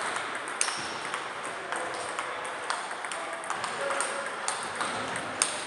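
Table tennis balls clicking against bats and tables in quick, irregular ticks from several tables being played at once, the sharpest click near the end.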